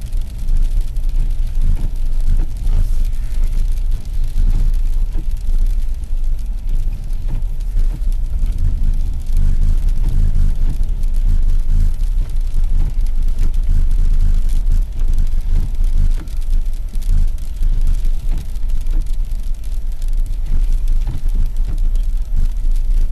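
Car driving over an icy, snow-covered parking lot, heard from inside the cabin: a steady low rumble of engine and tyres.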